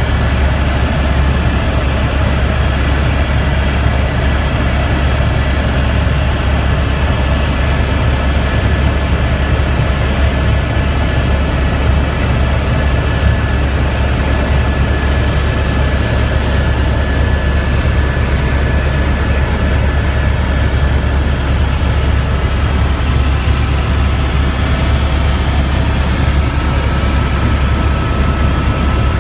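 Helicopter in flight: a steady heavy rumble of rotor and engine with fast low pulsing and a thin high whine, even and unbroken throughout.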